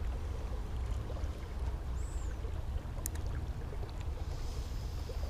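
Creek-side outdoor ambience: a steady low rumble under faint water sounds, with one short high chirp about two seconds in.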